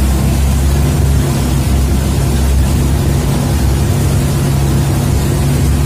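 Outrigger boat's inboard engine running steadily, a low drone under a constant hiss of wind and sea spray, heard from inside the boat.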